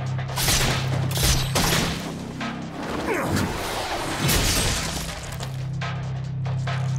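Anime fight-scene sound effects: a series of sharp hits and crashes, with a falling whoosh about three seconds in, over a low steady music drone.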